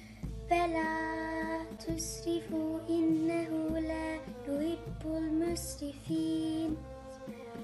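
Music with a high voice singing a melody in long held notes over a steady low accompaniment.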